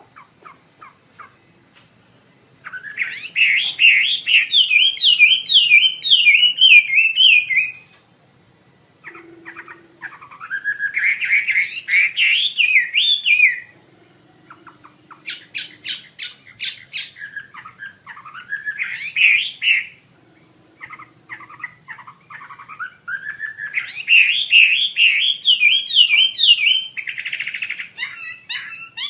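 Chinese hwamei (Garrulax canorus) in full song: long phrases of fast, rising-and-falling whistled notes, some broken into quick clicking trills, with short pauses between phrases.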